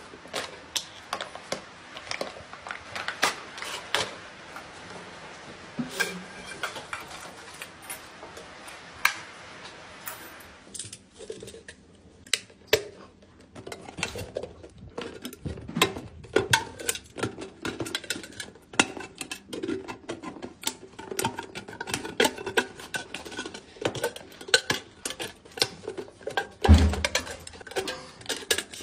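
Hand-held can opener working around the metal end of a cardboard chip canister: a long run of rapid clicks and metal scrapes, with a heavy thump near the end.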